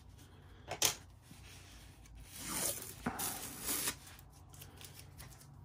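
Rolled diamond-painting canvas being handled and unrolled: a single click a little under a second in, then two rustling, rubbing swishes around the middle as the soft, felt-backed canvas slides across the table.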